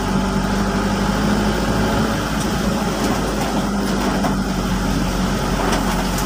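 Steady hum of a car engine heard from inside the cabin, over a constant hiss of heavy rain and tyres on a wet road.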